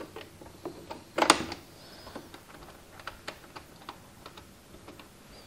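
Scattered plastic clicks and taps from hands working on an Addi Express knitting machine while threading in new yarn, with one louder click about a second in.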